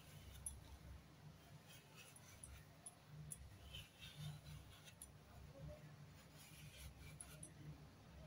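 Near silence, with faint, scattered scraping as the skin of a giant arum root (maan kochu) is shaved off against the edge of a boti, a fixed curved Bengali kitchen blade.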